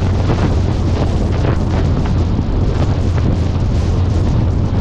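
Heavy wind buffeting on the microphone of a camera travelling with a Subaru Impreza WRX STI on the move, over a steady low drone from the car's engine and tyres at a gentle cruise.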